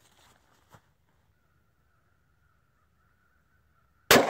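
A single shot from a scoped .308 rifle near the end, sudden and very loud, with its report carrying on after it.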